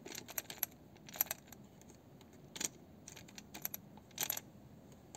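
Light plastic clicks and taps of a Lada Vesta fuel pump module's float being fitted onto the pump housing, a few at a time, with a sharper click near the end as it snaps into place.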